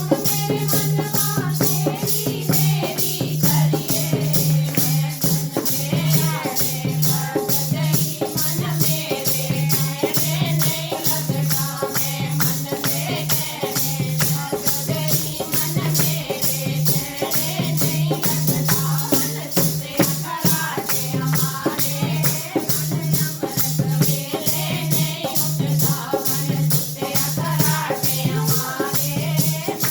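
Devotional kirtan music: a wavering melody over a rattling percussion beat at about three strokes a second, with a low pulsing tone underneath.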